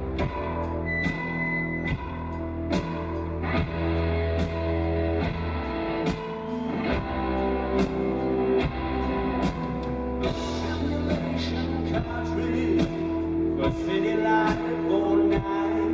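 Live rock band played loud through a concert PA: a deep, sustained bass line under steady drum hits and electric guitar. A male lead vocal comes in over it in the second half.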